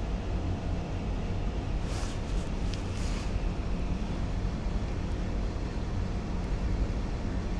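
Central air conditioning blowing steadily from a vent: a low, even rumble with a faint steady hum. Brief soft rustles come about two and three seconds in.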